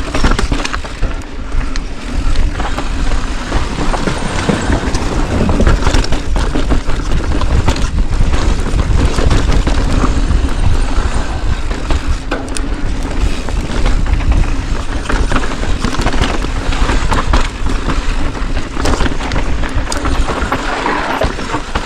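Wind rushing over an action camera's microphone at speed, with the clatter and knocks of riding over rough ground.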